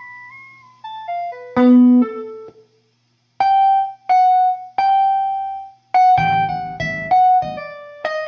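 A single-note melodic lick: a short falling run of notes, a brief gap, three held notes, then a quicker run of notes near the end.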